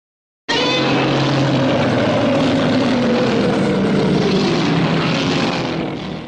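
Heisei Godzilla film sound effect: a loud, steady mechanical drone, like a flying machine's engine, with a tone that slowly falls in pitch. It starts abruptly about half a second in and cuts off at the end.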